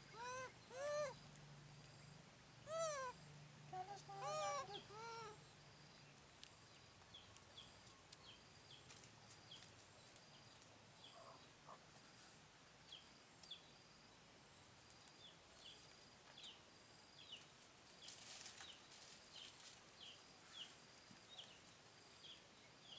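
A baby macaque's short rising-and-falling coo calls, about five of them in the first five seconds, then faint high chirps repeating about twice a second.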